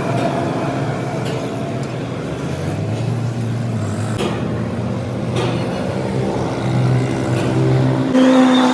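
An engine running steadily, with a few sharp knocks, and a sudden change in pitch near the end.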